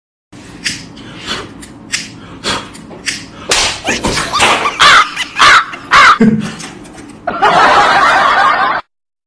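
A run of sharp slap-like hits, about two a second at first, growing louder and mixed with short voice-like cries. It ends in about a second and a half of loud rushing noise that cuts off suddenly.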